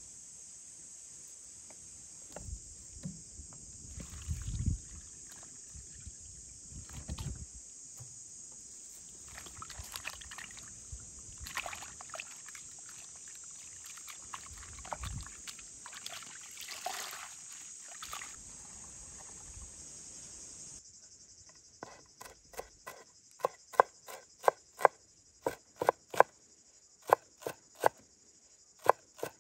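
Hands rustling and mixing loose herb leaves in a bowl, with a few soft thumps, against steady high insect chirring. About two-thirds of the way in, a knife starts chopping herbs on a wooden cutting board: sharp, regular knocks at about two a second.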